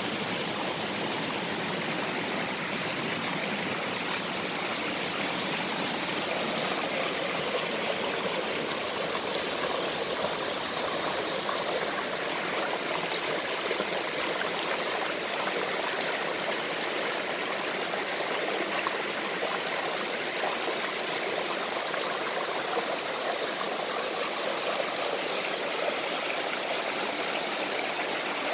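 Stream water rushing and splashing over a small waterfall, a steady, even rush without pause.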